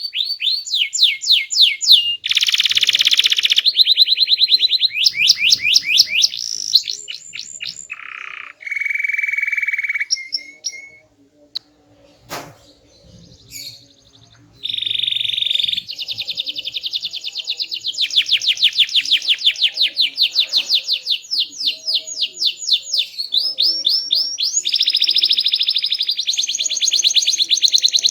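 Domestic canary singing a loud, varied song of fast trills and rolls, made of rapidly repeated notes that change pitch and speed from phrase to phrase. Midway there is a pause of about three seconds, with a single click, before the trilling resumes.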